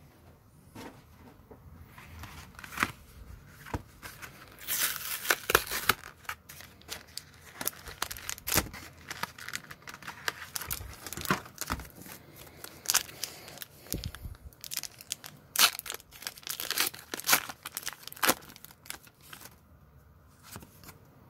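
Pokémon card booster pack wrappers being crinkled and torn open by hand, with a longer tearing sound about five seconds in and many small crinkles and crackles as the wrapper and cards are handled.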